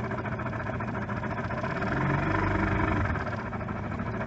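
Dinghy outboard motor running steadily under way, a little louder for about a second midway through.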